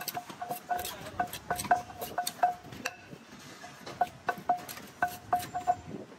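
A wooden pestle pounding papaya salad in a large clay mortar: quick, uneven knocks, each with a short ringing clonk from the pot, about four a second. There is a brief pause about three seconds in, and the pounding stops near the end.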